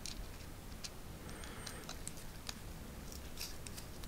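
Faint, irregular small clicks and ticks from a small T6 Torx driver turning a tiny screw into a folding knife's scales, with light handling of the knife.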